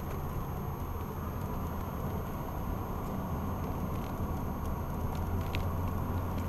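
BMW Z3 3.0's straight-six engine droning and road noise, heard from inside the car cruising at a steady speed; the low drone grows a little stronger about five seconds in.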